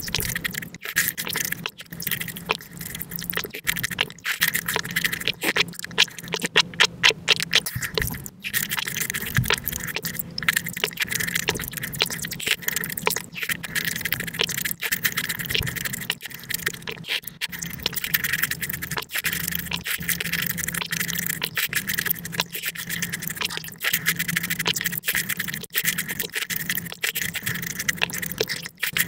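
Close-miked eating sounds played at five times speed: a dense, rapid run of wet chewing and slurping clicks from watermelon and fruit punch, with a spoon scraping the inside of the watermelon rind.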